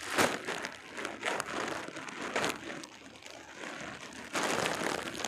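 Clear plastic garment bag crinkling as hands open it, in irregular bursts: a sharp one right at the start and a longer, denser stretch near the end.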